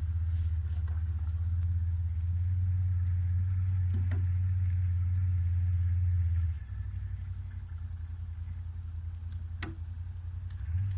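Small boat's motor running with a low, steady hum that drops suddenly to a lower level about two-thirds of the way through, with a couple of light knocks.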